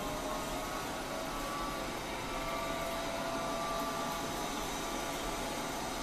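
Sharp Crown BL608 robot vacuum cleaner running: a steady hiss of its suction fan with a motor whine that drifts slightly in pitch as it drives over the tiled floor.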